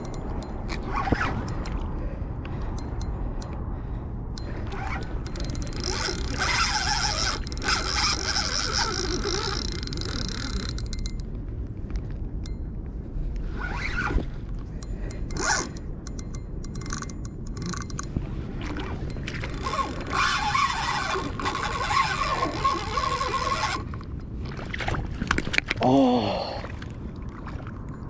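Spinning reel's drag buzzing in two long runs as a big sturgeon pulls line off against it, between stretches of reeling clicks and rough rod-handling rumble. A brief strained vocal grunt near the end is the loudest moment.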